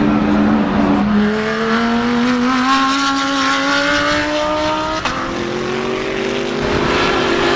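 GT3 race car engine accelerating, its pitch climbing steadily for several seconds. A sharp break about five seconds in, then another car's engine rising in pitch.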